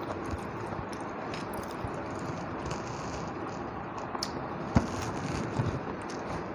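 A person eating rice and fish curry: chewing, with scattered small clicks and one sharp click nearly five seconds in.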